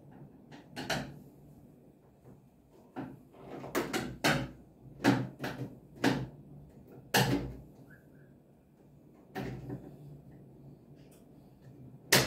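Irregular knocks and clicks of parts being handled and fitted on a washing machine during reassembly, about a dozen of them, some with a short ringing tail.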